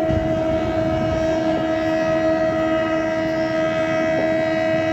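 Indian Railways locomotive horn sounding one long, steady blast over the low rumble of the moving train.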